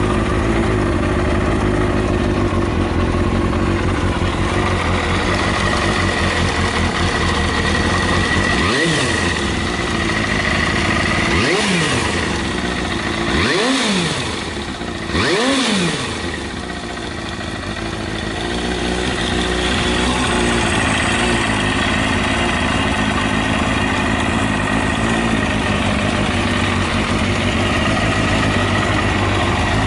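Kawasaki Balius II (ZR250B) 250 cc inline-four idling through an Outex titanium full exhaust, blipped four times near the middle, each rev rising and falling quickly before it settles back to idle. It runs without any abnormal noise.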